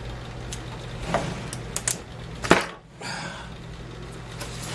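Light plastic clicks and taps from gloved hands handling a chainsaw's plastic housing, with one louder clack about two and a half seconds in, over a steady low hum.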